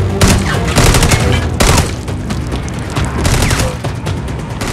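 A fusillade of gunshots in an action-film soundtrack: a rapid run of sharp cracks, loudest in the first second and a half, then thinner, over a steady low score.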